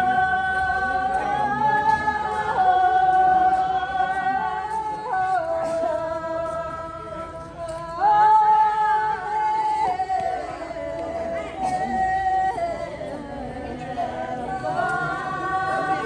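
Kyidrong Tibetan folk dance song sung unaccompanied by a group of dancers in unison, long held notes that step and slide between pitches. The singing drops away briefly and comes back louder about eight seconds in.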